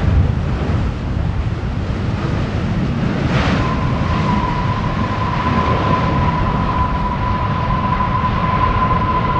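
Jet airliner engines rumbling steadily, with wind buffeting the microphone. About three and a half seconds in, a high engine whine drops quickly and settles into a steady tone.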